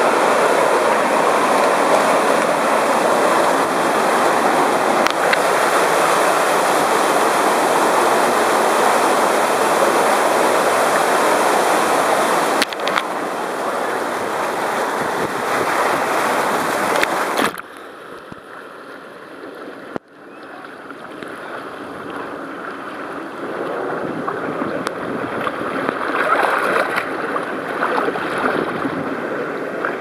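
Fast-flowing water rushing and splashing down a wild-water river slide channel, heard loud and close from a camera at the waterline. A little past halfway the sound suddenly turns quieter and muffled, then builds back up into splashing.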